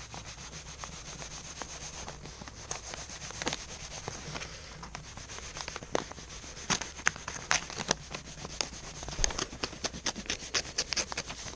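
Swiss Army knife blade cutting and scraping through a sheet of paper: irregular scratchy rubbing strokes with sharp ticks that come thicker about halfway through.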